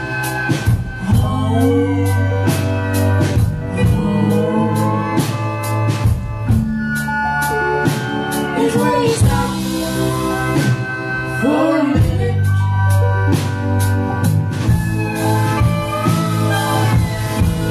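Live indie rock band playing loudly, with a drum kit keeping a steady beat, electric guitar and keyboard over held low bass notes, and singing.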